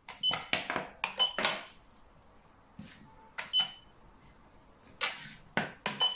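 Xiangqi pieces clacking down onto the board and being picked up in quick moves, with four short electronic beeps from a chess clock being pressed after moves.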